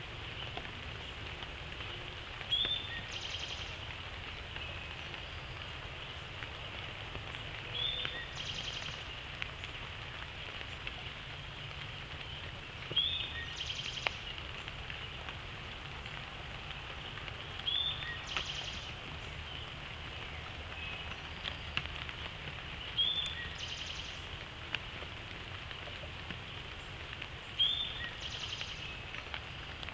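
Steady rain falling in woodland, with a songbird repeating the same short phrase about every five seconds: a sharp note followed by a brief buzzy trill, six times.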